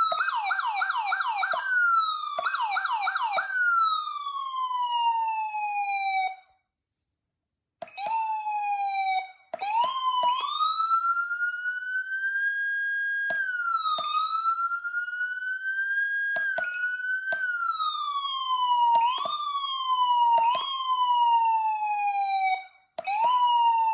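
Federal Signal SmartSiren Platinum SSP3000B electronic siren in manual mode. It opens with two short runs of rapid yelp sweeps, then coasts down in one long falling tone. After about a second of silence it sounds repeated manual wails, the tone climbing while held and sliding down when released, with sharp clicks at many of the changes.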